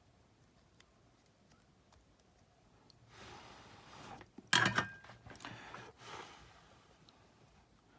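Rustling handling noise from hands and small parts being moved about, with one sharp clack about four and a half seconds in.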